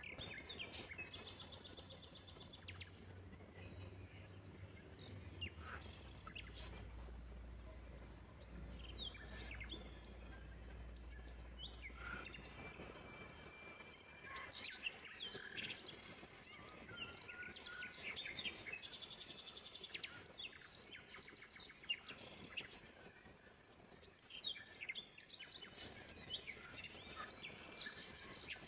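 Birds chirping and calling, with short rising and falling notes and a few fast trills.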